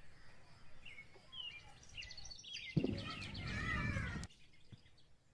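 Small birds chirping in short calls. About three seconds in, a louder noisy passage with a pitched call over it lasts about a second and a half, then cuts off suddenly.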